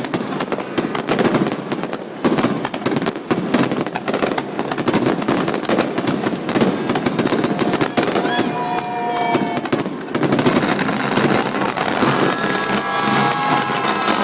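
Fireworks bursting and crackling in a rapid, dense barrage, many reports a second. Voices of onlookers calling out rise over it near the end.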